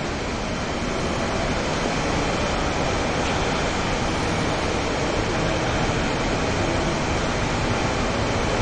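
A steady, even rushing noise with no distinct events and no change in level.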